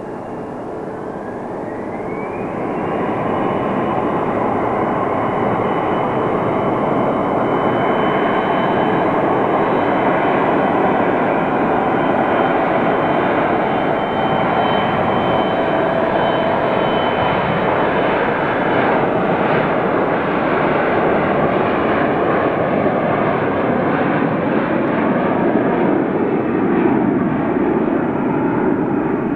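Twin GE CF34-8E turbofans of an Embraer E170 spooling up to takeoff thrust. A whine climbs in pitch over the first few seconds, then a steady high whine and jet roar run through the takeoff roll to liftoff.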